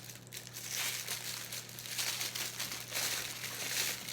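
Plastic packaging crinkling and rustling in irregular bursts as statue parts are unwrapped and handled, over a faint steady low hum.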